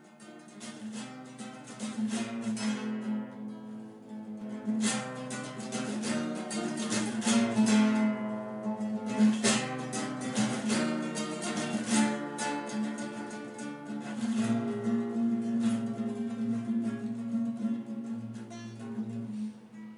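Music on a plucked string instrument: a run of plucked and strummed notes over a steady low drone, fading in at the start and dying away near the end.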